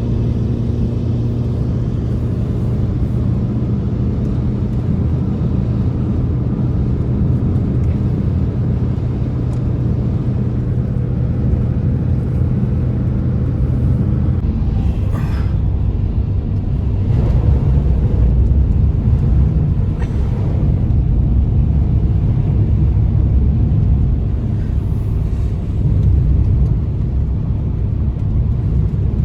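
Strong blizzard wind roaring as a steady low rumble, with a faint hum in it during the first half and a few light ticks.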